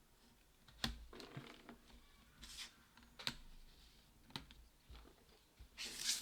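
A few sharp clicks a second or more apart as MacBook 12 internals are pressed down and seated by hand, with softer scraping between and a short rustle near the end.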